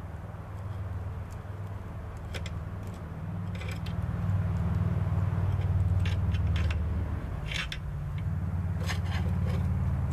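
Scattered light metallic clinks and scrapes as a bar turns a Model T engine's crankshaft, flywheel and transmission by hand, over a steady low mechanical hum that gets louder about four seconds in.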